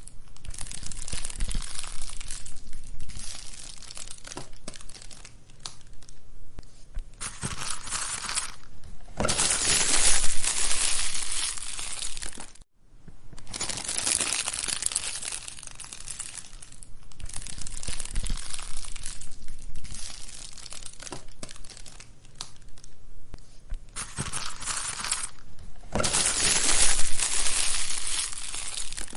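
Wood fire burning in a fireplace, crackling and popping continuously, with swells of louder hissing crackle. It cuts out for a moment a little under halfway through.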